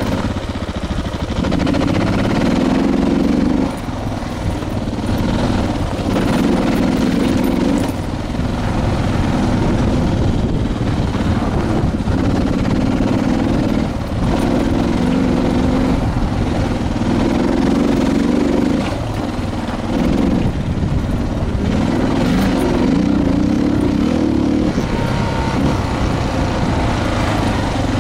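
Suzuki DR650's single-cylinder engine running under way on a dirt road, the throttle rolled on and off every couple of seconds, with wind noise over it.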